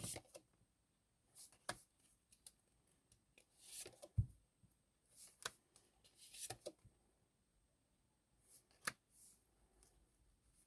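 Faint handling of a tarot deck: soft rustles and light clicks of cards being shuffled and laid down, with a dull thump about four seconds in.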